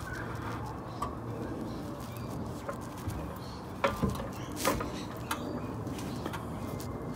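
Hand tools working at a car's rear differential: a few sharp metallic clicks and knocks, the loudest about four seconds in, over a steady low hum.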